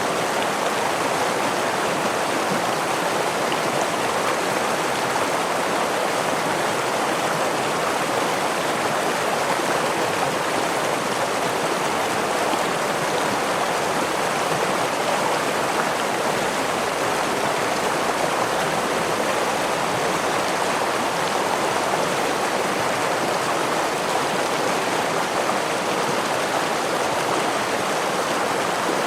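Running water of a stream or small waterfall: a steady, even rush with no breaks.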